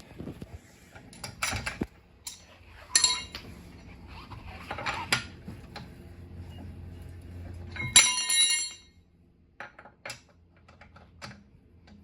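Metal tools and lug bolts clinking and knocking while a car's wheel lug bolts are being removed. There is a ringing metal clank about three seconds in and a louder one about eight seconds in.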